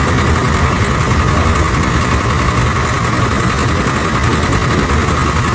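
Diesel engine of a Swaraj 744 tractor running steadily, heard from the driver's seat.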